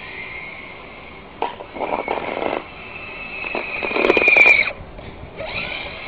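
Electric motor and gearbox of a remote-control Jeep whining steadily, spinning up again near the end. Twice the whine is joined by a louder scraping crunch as the plow blade pushes snow, the second push, about four seconds in, the loudest, with a few sharp clicks.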